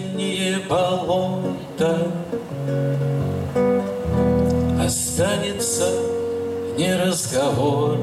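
A man singing a slow song to his own acoustic guitar, the guitar picked and strummed throughout.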